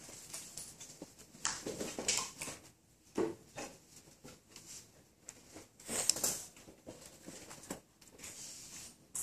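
A person breathing close into the microphone: a few slow, noisy breaths that swell and fade, the strongest about one and a half to two and a half seconds in and again about six seconds in.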